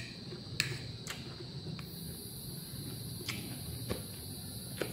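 Eating salad: a handful of short light clicks and crunches as a fork picks at the salad on a plate, with soft chewing, over a steady high-pitched ringing tone.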